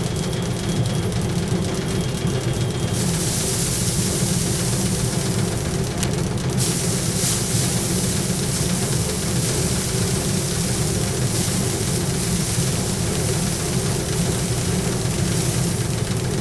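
Powered paddy thresher running steadily as bundles of rice stalks are held against its spinning drum to strip off the grain.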